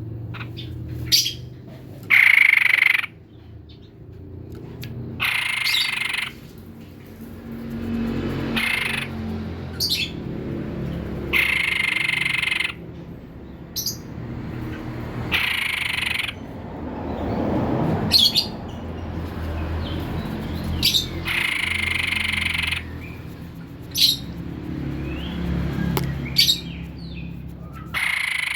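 White-chested babbler (tepus dada putih) singing: about six phrases of a second or so each, with short sharp chirps between them, over a steady low background noise.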